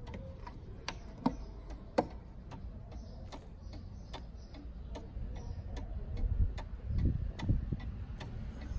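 Fusee dial wall clock's pendulum movement ticking steadily, about two ticks a second. Two louder knocks between one and two seconds in come as the small wooden side door of the case is opened, and a low handling rumble sounds near the end.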